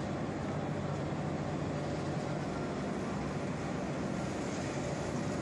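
Steady industrial machinery noise from a rotary drum dryer plant running: a continuous low hum under an even rushing noise, with no changes.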